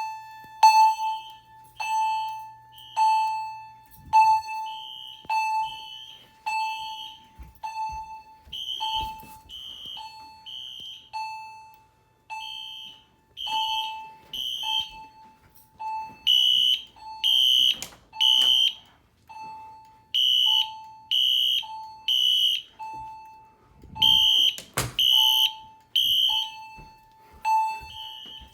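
Fire alarm system sounding: a chime strikes a single decaying note about once a second while a high-pitched sounder beeps in groups of three, the temporal-three evacuation pattern, louder in the second half. A few knocks, with one sharper thump near the end.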